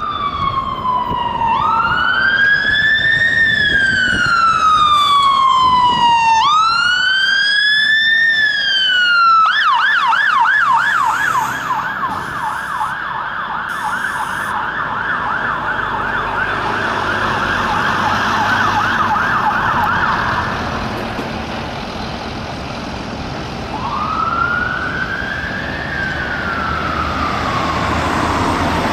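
Electronic siren of a Volvo FM380 aerial ladder platform fire engine sounding as it responds to an emergency. It starts in a slow rising-and-falling wail, switches about ten seconds in to a fast yelp for about ten seconds, and goes back to a slow wail near the end, over road traffic noise.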